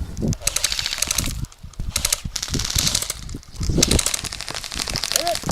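Airsoft guns firing in several rapid full-auto bursts, a fast rattle of shots, over low rumbling and thumping.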